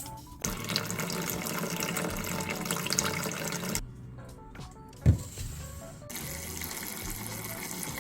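Kitchen tap water running in two stretches, stopping for about two seconds in between, with a single knock in the pause. Background music plays underneath.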